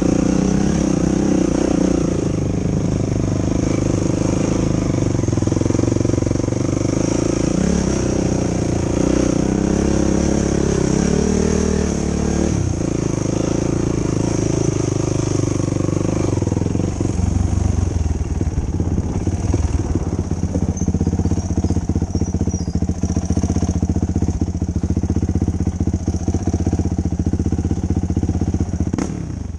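Yamaha YFZ450 ATV's single-cylinder four-stroke engine running under throttle, its revs rising and falling. About halfway through it drops to a lower, steadier pitch with a lot of rattling and clatter.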